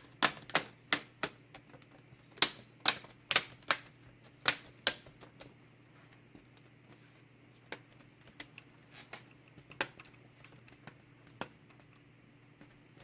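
Plastic screen bezel of an Acer Aspire E15 laptop being pressed onto the lid: a series of sharp clicks as its snap clips seat, about a dozen in the first five seconds, then a few scattered ones.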